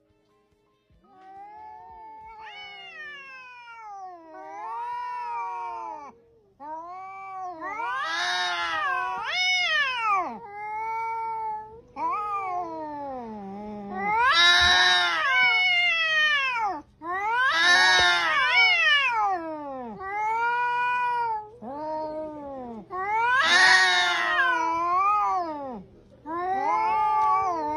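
Two domestic cats yowling at each other in a face-off: long, wavering yowls that rise and fall in pitch, one after another, growing louder after the first few seconds. Such yowling between two cats face to face is a threat display.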